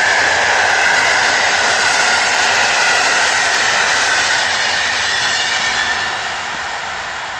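Passenger coaches of an electric-hauled train passing at speed: a steady rush of wheels on rail and moving air with a high whine over it. The sound fades near the end as the train draws away.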